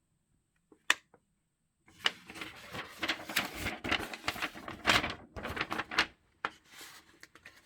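Paper rustling and clicking as the pages of a phone's instruction manual are leafed through, in a dense run of quick page-turning sounds. A single click comes just under a second in, and scattered softer handling clicks follow the run.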